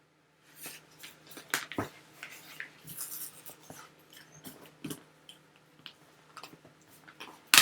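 A cardboard shipping box being handled and pulled open by hand: irregular rustles, scrapes and small clicks, with one sharp snap near the end.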